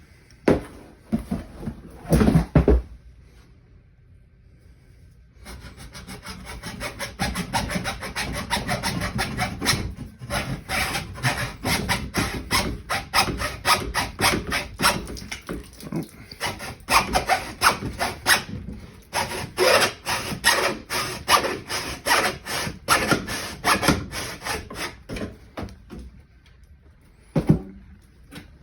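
A couple of knocks, then a hand saw cutting through pipe with quick back-and-forth strokes for about twenty seconds, with brief pauses about ten and nineteen seconds in.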